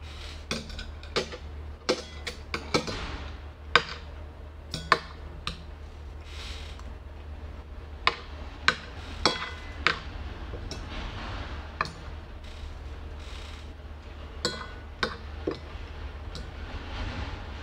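Metal chopsticks and a metal spoon clinking and scraping on a ceramic plate while eating: irregular sharp taps, some with a brief ring, and softer scrapes between them.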